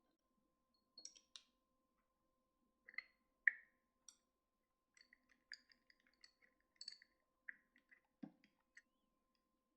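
Scattered light clicks and taps of small hard parts being handled, sparse at first with the sharpest tap about three and a half seconds in, then a quick run of small clicks in the second half. A faint steady hum runs underneath.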